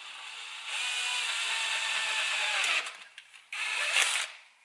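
Power drill boring a hole through the center of a camera mount: a steady run of about two seconds that winds down, then a second short burst near the end.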